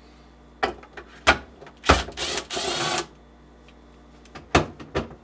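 Milwaukee cordless driver with a quarter-inch nut driver bit running for about a second, backing out a screw holding a refrigerator side support. A few sharp clicks and knocks of the tool against the plastic come before and after.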